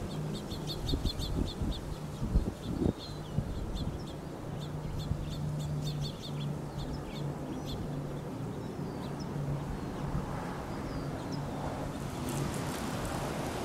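Small birds chirping: a quick run of short high chirps about a second in, then scattered calls. Underneath are wind gusts buffeting the microphone in the first few seconds and a steady low hum, and a broad rushing noise comes in near the end.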